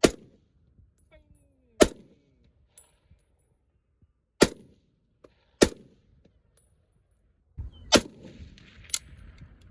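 Gunshots on a shooting range: six single shots at uneven intervals, each a sharp crack with a short ringing tail.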